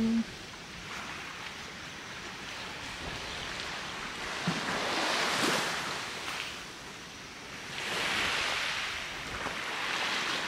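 Small waves washing onto a sandy beach, the surf swelling and falling back every few seconds.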